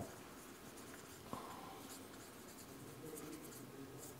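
Marker pen writing on a paper sheet pinned to a wall: faint scratching strokes, with a light tap about a second in.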